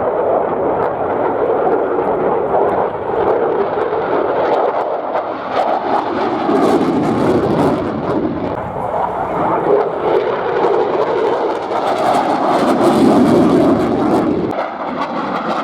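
Fighter jet engine noise from a jet flying an airshow display pass: a loud, continuous jet roar that swells twice, once around the middle and again, loudest, near the end.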